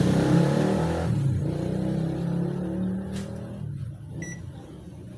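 A machine humming steadily, loud at first and dropping to a quieter hum after about three seconds, with one short electronic beep about four seconds in.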